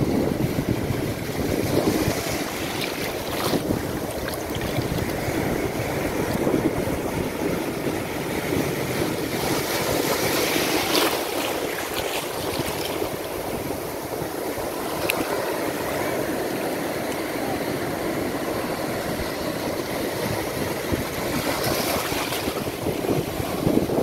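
Sea surf washing in over flat shoreline rocks: a steady rush of churning water, with louder hissing breaks about ten seconds in and again near the end.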